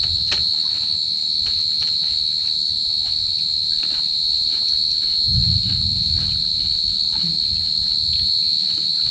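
Insects chirring in one steady, unbroken high-pitched drone, with a few faint clicks and a low muffled rumble joining a little past halfway.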